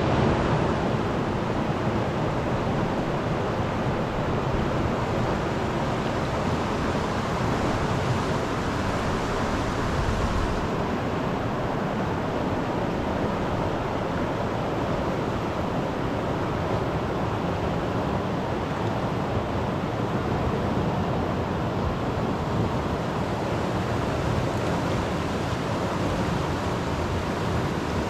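Steady, even rushing noise with no pitch or rhythm, like running water or wind outdoors; the lowest tones shift slightly about ten seconds in.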